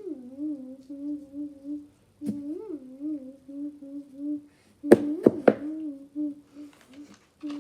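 A child humming a wavering tune. A click comes a couple of seconds in, and three sharp knocks, the loudest sounds, come about five seconds in.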